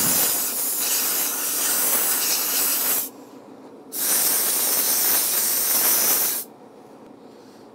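Compressed-air blow gun blasting air to blow the LNG fill nozzle and the tank's fill receptacle clean of dirt before connecting. It makes two steady hissing blasts: one about three seconds long, then after a second's pause a second of about two and a half seconds.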